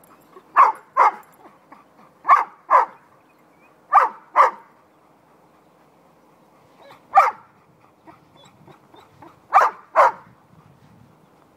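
A puppy barking in quick double barks: four pairs and one single bark, with short gaps between them.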